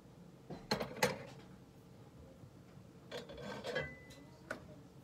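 Ceramic plate and kitchenware being handled on a stovetop: a couple of sharp clinks and knocks about a second in as the plate is set down, then a shorter rattle of handling a few seconds later and one last click.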